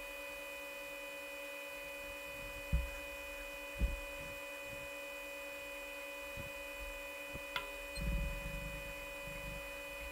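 Steady electrical hum made up of several fixed tones, some of them high-pitched. Two short low thumps come about three and four seconds in, and a faint low rumble comes near the end.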